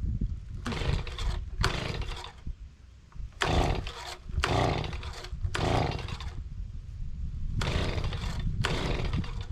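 Small two-stroke engine of a gas blower being pull-started: it catches in about eight short sputtering bursts, each dying away before the next, with a low rumble under them. It is being hard to start.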